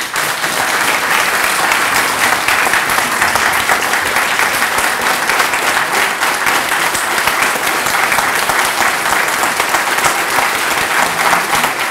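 Audience applauding steadily: dense, even clapping from a roomful of people.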